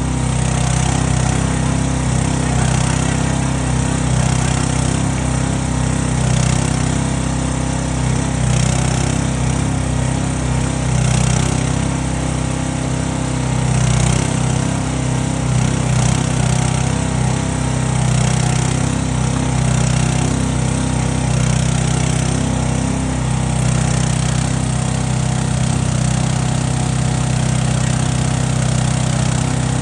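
An engine running steadily at a constant speed, with a low hum that holds unchanged throughout.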